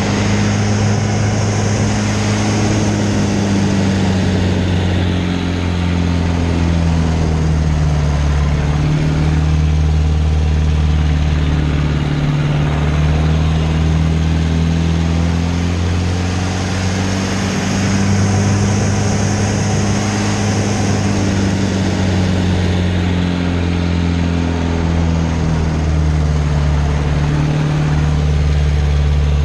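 Pitts Special biplane's engine and propeller droning, heard inside the cockpit with rushing air over the canopy. The engine note sags and climbs back twice as the aircraft flies aerobatic manoeuvres, and the air rush grows louder whenever the note is high.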